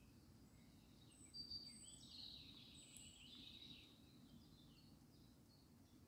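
Faint birdsong outdoors: a burst of high chirps and short whistles from about a second in until about four seconds, over a steady low background rumble.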